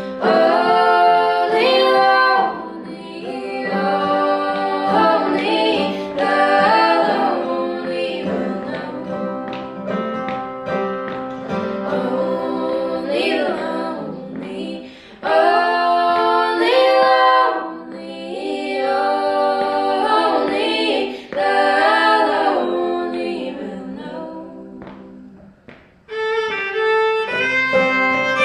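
Women's voices singing a country song in harmony over acoustic guitar, fiddle and banjo, in phrases with short breaths between. Near the end the singing stops and the fiddle takes the lead.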